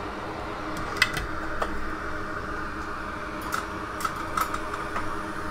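Steady whir of a fan on a microsoldering bench, with a few light, sharp clicks of small tools against the circuit board starting about a second in.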